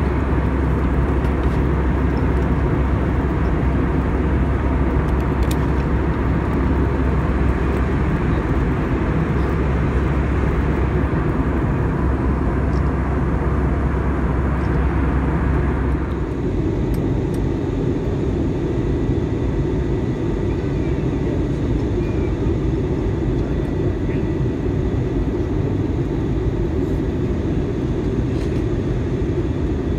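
Steady roar of an airliner cabin in flight: jet engine and airflow noise heard from inside. About halfway through it changes abruptly, losing its deepest rumble and some of its hiss, then carries on steady.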